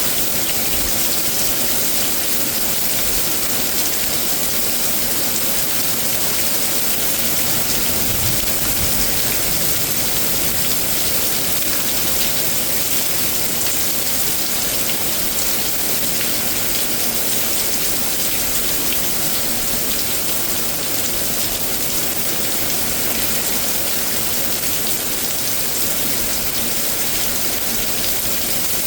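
Heavy rain from a severe thunderstorm falling steadily and hard on surfaces, a constant loud hiss.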